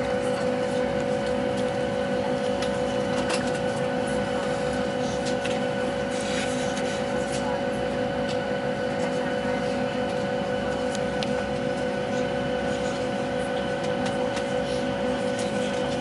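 Airliner cabin noise while waiting on the ground: a steady drone with a constant whine running through it and a few faint clicks.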